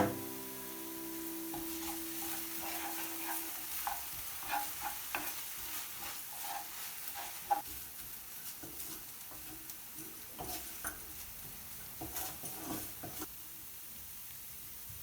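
Food frying in a pan with a steady sizzle, stirred with a utensil: scattered clicks and scrapes against the pan.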